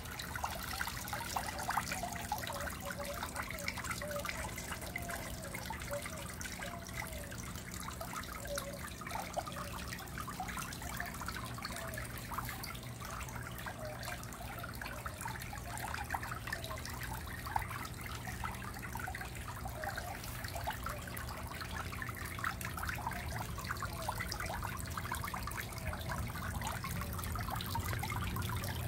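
Water trickling and splashing into a small tub pond from an inflow, with many small plinks and gurgles over a steady wash.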